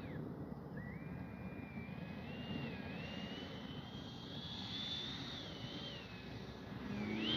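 Whine of an E-flite F-16's 70 mm electric ducted fan in flight at a distance, a thin tone whose pitch wanders up and down with the throttle. Near the end it rises in pitch and grows louder as the jet comes closer.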